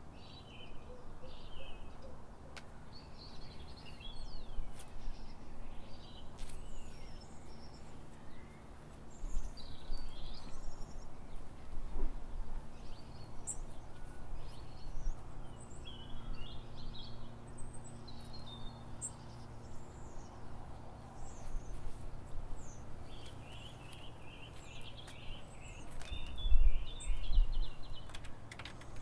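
Small birds chirping and twittering on and off over a steady low outdoor background rumble. A dull low thump about three quarters of the way through is the loudest sound.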